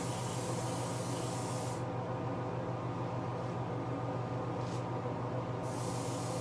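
Aerosol can of Duplicolor clear coat spraying with a steady hiss. It stops about two seconds in, gives one short spurt, and starts again near the end. A steady low hum runs underneath.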